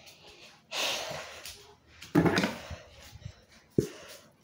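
A girl's breathy puffs and rustling as a football helmet is pulled on, twice in the first half, with one sharp knock a little before the end.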